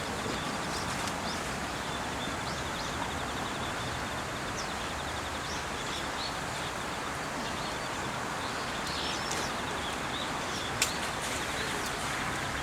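Steady rushing outdoor background noise with scattered short, high bird calls. A fast, even, high-pitched trill runs through most of it, and there is a single sharp click near the end.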